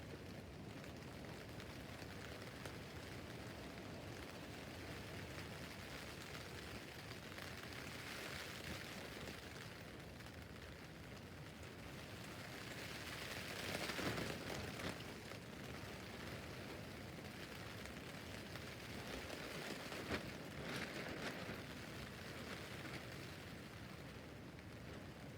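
Rain falling on a tent roof, a steady drumming of drops on the fabric that grows heavier for a few seconds about halfway through and again briefly later on.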